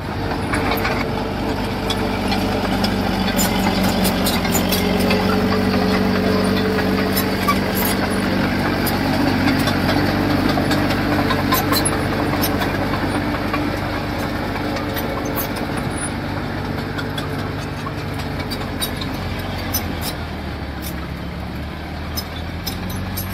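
Diesel engine of a small construction machine running steadily, working harder for the first dozen seconds with a brief rise in pitch, then easing back, with scattered sharp clicks over it.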